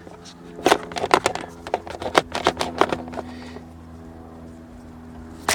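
Quick run of light plastic clicks and taps as the car's console trim and wiring are handled, then one sharp click near the end, over a faint steady low hum.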